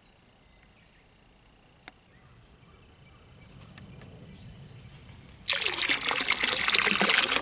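Water pouring and splashing for about two seconds, starting suddenly past the middle, after a few faint bird chirps.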